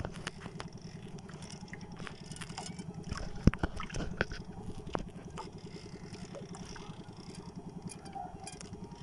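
A small boat engine running in a steady low drone, with scattered sharp clicks and knocks from the angler's jigging rod and Ocea Jigger conventional reel as he reels against a hooked yellowfin tuna.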